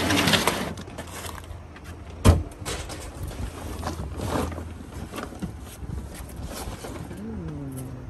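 Wind buffeting the microphone as a steady low rumble, with a sharp knock about two seconds in and a short wordless voice sound near the end.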